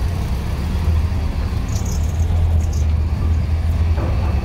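Steady low rumble of a car engine heard from inside the cabin as the car rolls slowly along, with a few faint high clicks about two seconds in.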